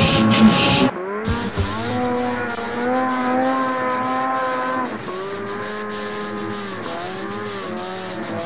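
Snowmobile's two-stroke engine revving hard under load up a snow slope, its pitch rising, holding, then dropping about five seconds in and wavering as the throttle is worked. About the first second is music, which cuts off abruptly.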